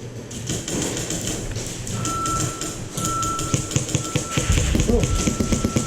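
Electronic beeper sounding four beeps of a single steady pitch, of uneven length, starting about two seconds in, over scattered clicks and taps.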